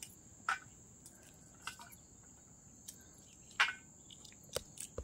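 A steady high insect trill, with scattered soft clicks and snaps of bean pods being split and shelled over a steel plate.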